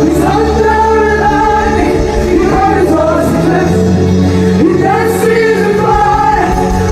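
Gospel worship music: voices singing over steady held chords and bass.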